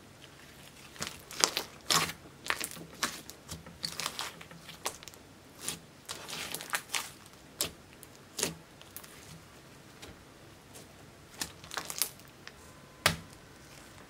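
Thick orange slime, clear slime mixed with clay and makeup, being stretched, folded and squeezed by hand, giving irregular sticky clicks and pops as air pockets in it burst. The pops thin out with a short lull near the middle, and one loud pop comes near the end.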